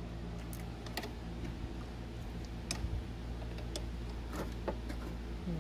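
Scattered light clicks and taps of hands and plastic and metal parts as a radiator is worked loose from its mounts, over a steady low hum.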